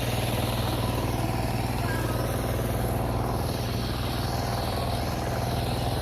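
A small engine idling steadily, a low even hum with a fast regular pulse.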